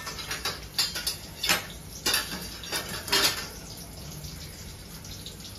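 Metal kitchenware clattering: about ten sharp clinks and knocks of plates, pans and utensils being handled while cooking, stopping after about three and a half seconds.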